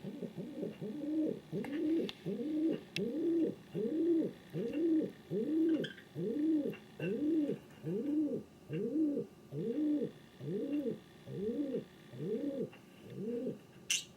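King pigeon calling a long run of some twenty short coos, about one and a half a second, each note rising then falling in pitch. A sharp click near the end.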